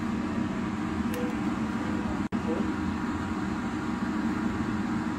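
Steady low hum of indoor background noise, with a brief cut-out a little past two seconds in.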